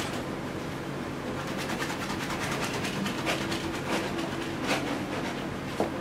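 Steady background hum, with a few faint short scrapes of a brush working oil paint on canvas.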